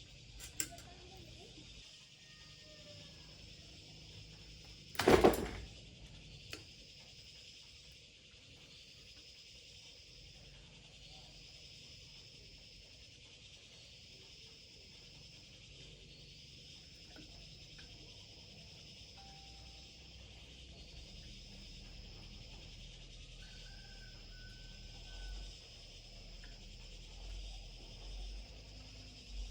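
Insects, such as crickets or cicadas, trilling steadily in a pulsing chorus, with one loud sharp knock about five seconds in and a smaller click soon after.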